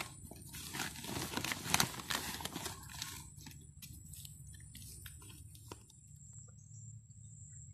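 Hands digging into a woven plastic sack of charred oil-palm-bunch soil: the sack rustles and crinkles and the soil crunches in a run of quick crackles, which stop about six seconds in.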